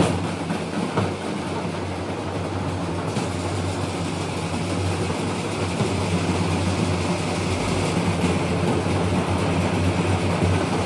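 A padband street drum troupe's many large double-headed drums played together. Separate beats give way, about a second in, to a dense continuous roll that slowly grows louder.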